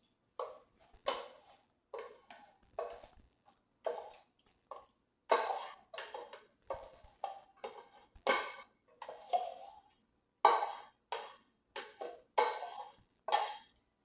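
Kitchenware being handled and set down: a string of knocks and clinks, one or two a second at uneven spacing, each ringing briefly.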